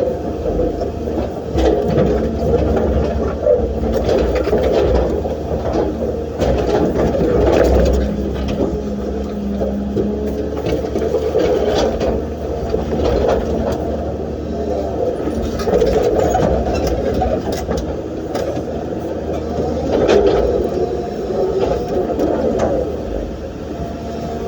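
Hydraulic excavator's diesel engine running under working load, rising and easing every few seconds as the hydraulics work, with scattered knocks and scrapes of the bucket against sand and stone.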